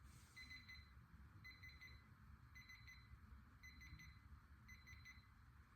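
Faint electronic beeping from a digital torque wrench: short groups of quick high pips repeating about once a second.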